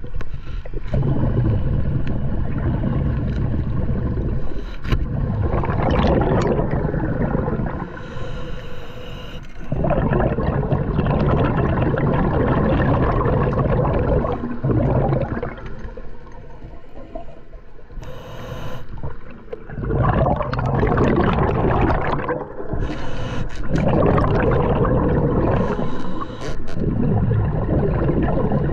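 Underwater recording of a scuba diver breathing through a regulator: bubbles rush out with each exhale in bursts of a few seconds, with quieter gaps between breaths.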